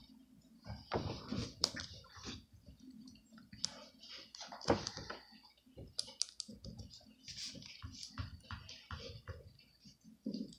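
Plastic action figure being handled, with a small plastic weapon pressed onto its wrist: irregular light plastic clicks and rustles.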